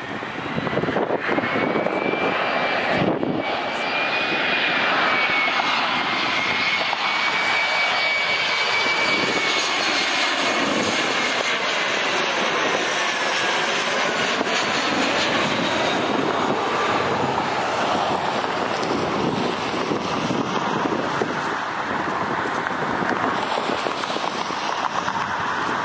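Embraer E175 regional jet on final approach with its two GE CF34 turbofans running, loud and steady. A high engine whine holds as it nears, then falls in pitch as the jet passes overhead about halfway through, leaving a broad jet noise as it moves away.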